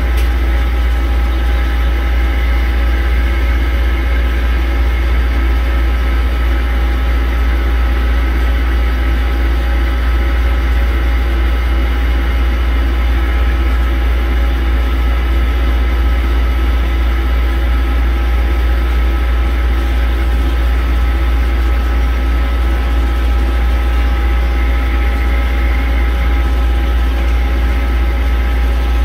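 Steady machinery drone: a deep, constant hum with several unchanging whining tones above it and a noise hiss, as of shop machinery running.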